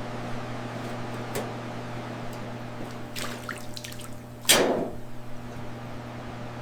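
Steady low electrical hum with scattered light ticks, and one short, loud hiss about four and a half seconds in.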